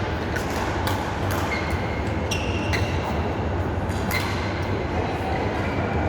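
Badminton rally: sharp racket hits on a shuttlecock at irregular intervals, with short high-pitched shoe squeaks on the court floor, over a steady hall hubbub.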